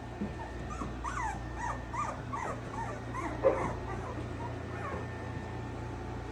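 Young boxer puppies whimpering and squealing: a quick run of short, high, overlapping squeaks that thins out after about four seconds.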